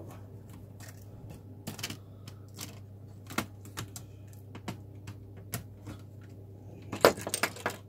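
Scattered clicks and taps of plastic and metal parts as a laptop is taken apart by hand, a screwdriver and fingers working at the hinge cover and keyboard edge. Near the end there is a quick cluster of louder clicks.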